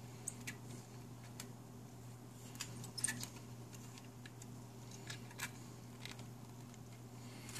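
Light clicks and taps of 9-pin tube sockets and a circuit board being handled, the socket pins seating in the board's holes, loudest about three seconds in. A steady low hum runs underneath.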